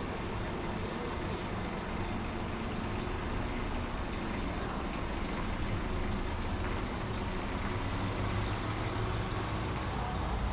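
Fire truck's diesel engine running steadily as the truck drives slowly along the street, under a wash of outdoor background noise.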